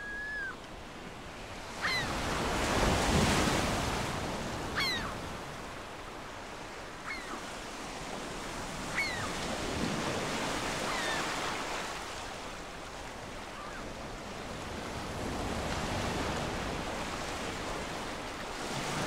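Lake waves washing onto a shore in slow surges. A bird gives short, high, sliding calls every couple of seconds.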